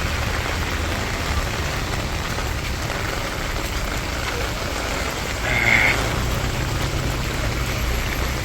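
Heavy rain falling steadily, with wind buffeting the microphone as a low rumble. Briefly louder about five and a half seconds in.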